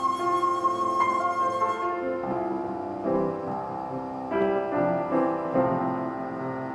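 A bicycle pump played as a flute holds a long note over upright piano accompaniment. The pump note ends about two seconds in, and the Rönisch upright piano carries on alone with chords and a melody.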